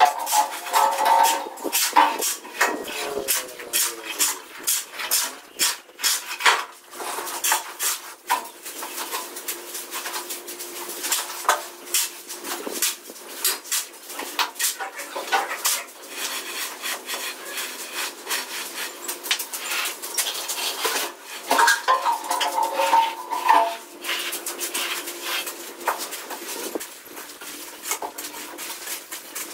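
Steel trowel scraping and tapping on wet cement mortar while a floor screed is spread and levelled, giving a steady run of irregular metallic clinks and scrapes. Twice, about a second in and again about 22 seconds in, a short squeaky pitched sound rises over the scraping.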